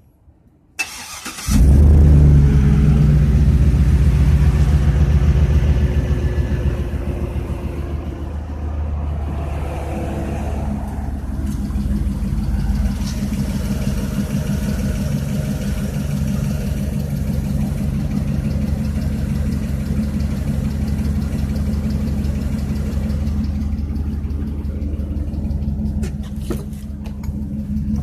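2006 Chevrolet TrailBlazer SS's 6.0-litre LS2 V8 cranked briefly and catching, running at a raised idle that settles down to a steady, evenly pulsing idle after several seconds. The owner is asking whether the idle holds piston slap.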